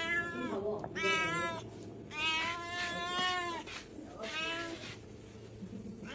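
A cat meowing four times in a row; the third meow is long and drawn out.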